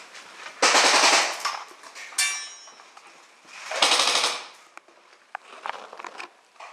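Airsoft gun firing two short full-auto bursts of rapid shots, about three seconds apart, with a sharp metallic ping ringing briefly between them.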